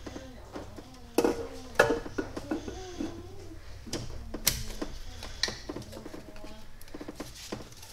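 Metal clunks and clicks as a cylinder head is set down and shifted into place on a V8 engine block by hand. The two loudest knocks come about a second in and just under two seconds in, with lighter clicks scattered after.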